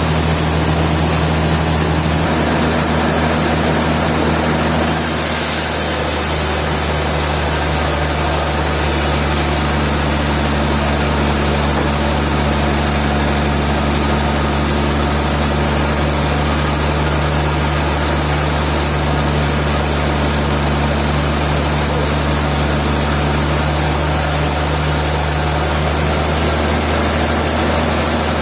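Sawmill machinery running with a steady low hum. About five seconds in, a high hiss grows louder and then holds.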